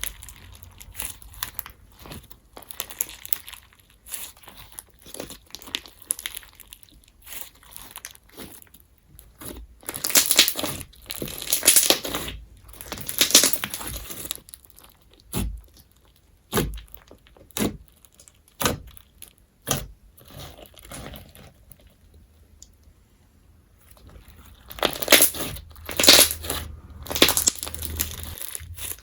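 Crunch slime, a glossy glue slime packed with foam beads, being squeezed and kneaded by hand, giving irregular crackling crunches. The crunching grows louder in bursts about a third of the way in and again near the end, with a quieter lull between.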